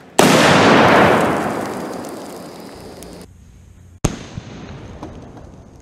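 Tannerite and gasoline explosion: a sudden, very loud blast just after the start that rumbles away over a couple of seconds, then a second sharp blast about four seconds in.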